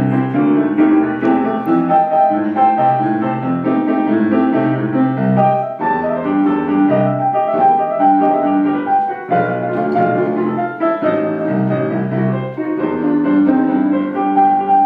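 Piano playing a rhythm-and-blues introduction, chords struck in a repeating pattern with no singing yet.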